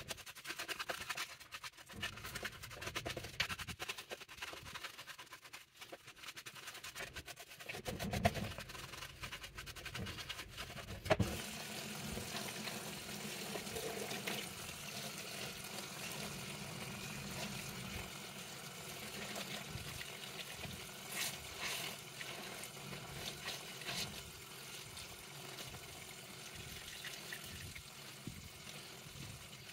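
Tap water running into a stainless steel sink of soapy water while hands squeeze and scrub a soaked plush toy under the stream. Uneven squelching and scratchy handling with a few knocks for the first ten seconds or so, then a steady rush of running water.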